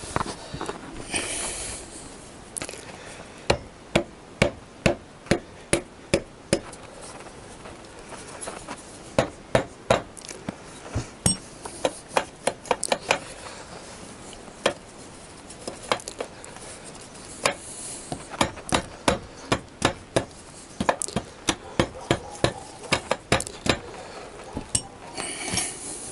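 Repeated sharp metal knocks and taps, irregular and sometimes in quick pairs, as tools work at the alternator of a Honda CBR1000F engine to get it out.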